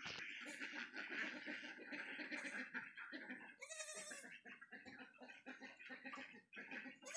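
Young goat kids bleating, over a steady high background hiss.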